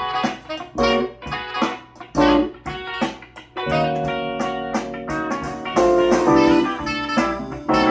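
Instrumental music with a plucked, rhythmic electric guitar, played back through a pair of 1970s Ultralinear M15 two-way bookshelf speakers with a 4.5-inch woofer and a 1-inch tweeter. The owner finds these speakers severely lacking in bass.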